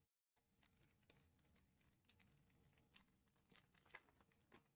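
Near silence, with a few faint, scattered clicks and rustles of trading cards being handled.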